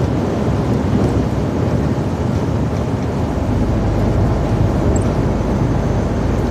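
Steady low drone of engine and road noise inside a truck cab cruising on a wet motorway, with tyre hiss from the wet road surface.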